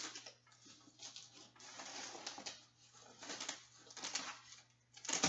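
Soft vinyl-and-fabric side-by-side enclosure being pulled and shifted by hand, giving irregular rustling and scraping rasps, the sharpest one near the end.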